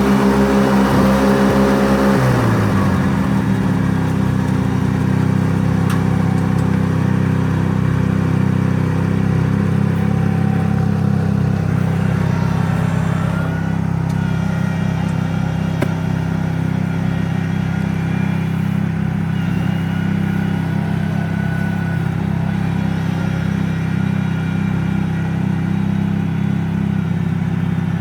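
Rice transplanter's engine running steadily. About two to three seconds in, its pitch drops and it settles into a lower, even speed.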